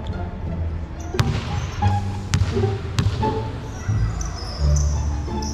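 A basketball thudding sharply on the court floor of a large arena, three times over about two seconds, as a missed shot comes down and bounces.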